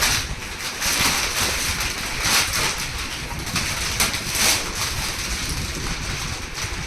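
Gift wrapping being torn and crinkled off a box by hand, in irregular rustling bursts over a low rumble.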